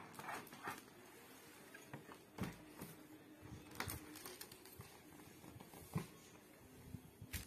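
Faint rustling and crinkling of a paper gift bag as a hand reaches in and lifts out a ribbon-tied gift box, with scattered light taps and knocks; the sharpest knock comes about six seconds in.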